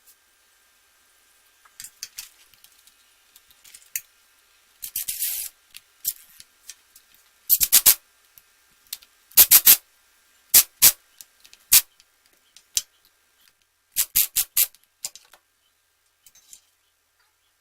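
Wire door hanger being worked with small hand tools: short metallic clicks and scrapes, coming irregularly in clusters, with one brief rasping scrape about five seconds in.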